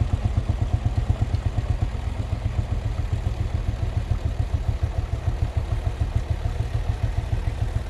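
Series Two Field Marshall tractor's single-cylinder two-stroke diesel running under load while pulling a trailer plough, with a rapid, even exhaust beat of roughly eight to ten pulses a second.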